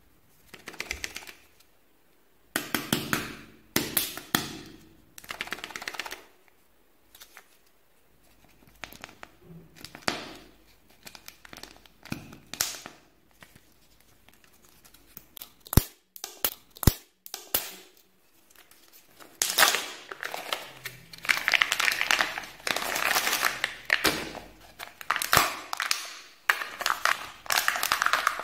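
Kinder Joy egg's wrapper crinkling and crackling in irregular bursts as fingers handle and peel it off the plastic egg, denser in the last third. Three sharp clicks come about halfway through.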